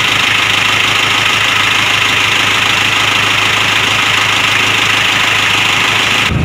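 A 1996 Isuzu Panther's 2.3-litre diesel engine idling steadily with an even, regular rhythm and no rough running. The seller takes this as a sign that the engine is still tight and needs no overhaul. The sound cuts off just before the end.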